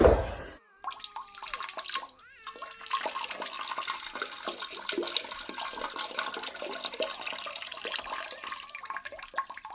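Water running and splashing in a steady rush, beginning after a short loud burst at the start.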